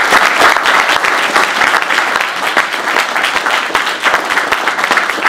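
Audience applauding: many people clapping together, steady and sustained.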